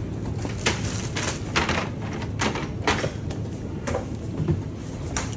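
A run of about nine sharp knocks and clatters, roughly every half second, over a steady low hum: plastic supermarket crates and boxes being handled and stacked off roll cages.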